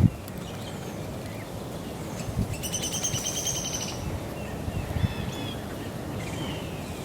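Songbirds calling outdoors: one bird gives a rapid trill of quickly repeated high notes lasting about a second and a half, starting near the middle, followed by a few short chirps. A low rumble of wind or outdoor noise runs underneath.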